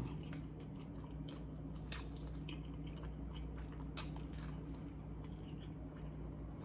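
A person chewing a mouthful of Five Guys food: soft wet chewing with scattered small clicks and smacks, over a faint steady low hum.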